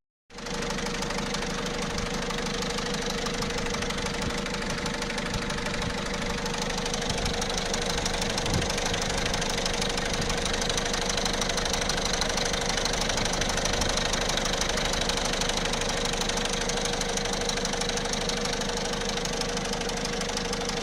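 1.6 HDi diesel engine idling with a fast, steady metallic ticking rattle from the timing side. The mechanic puts it down to a worn chain linking the two camshafts and its tensioner, with the hydraulic lifters also ticking from lost oil pressure.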